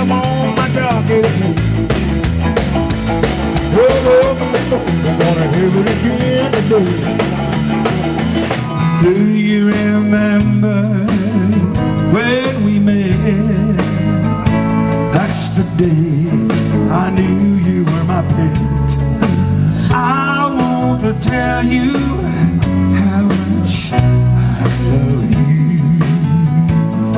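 A live band playing loudly outdoors: saxophone, drum kit, bass and keyboard, with a singer. The sound changes abruptly to a different passage about eight and a half seconds in.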